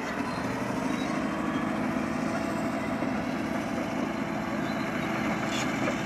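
Caterpillar D9R bulldozer's diesel engine running steadily as the dozer pushes a load of topsoil down a slope.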